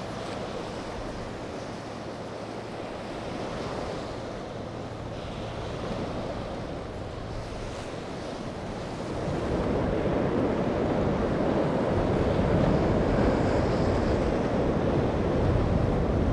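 Rough ocean surf and wind rushing steadily, with wind buffeting the microphone and a faint low hum underneath. About nine seconds in, the rush of water grows louder and fuller.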